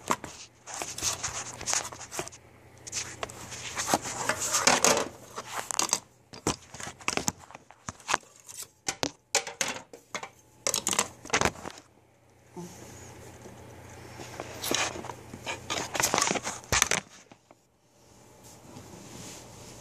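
Handling noise from a phone being picked up and repositioned: irregular rubbing, scraping and knocks against its microphone, coming in uneven bursts with short pauses.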